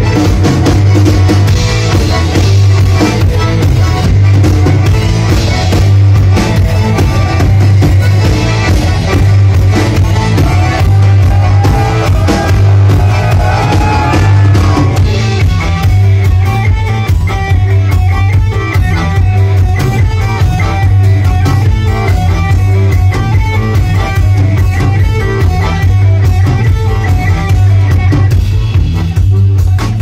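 Live band playing an instrumental passage on button-free piano accordion, electric bass, guitar and drum kit, loud, with a heavy steady bass; about halfway through it settles into a repeating riff of short notes.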